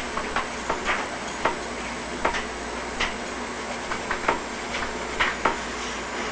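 Irregular light clicks and taps, about a dozen over six seconds, over a steady hiss.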